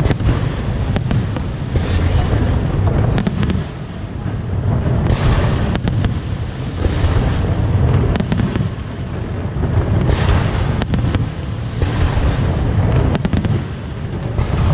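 Fireworks display going off: a continuous low rumble of booming shells with many sharp crackling reports, coming in clusters every second or two.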